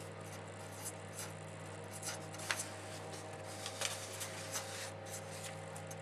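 Felt-tip marker writing on paper: short, irregular scratching strokes over a steady low hum.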